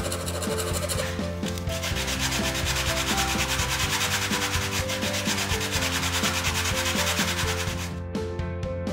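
Hand sanding block rubbed back and forth along the edge of a wooden board: quick, steady rasping strokes that near the end turn into separate strokes about four a second.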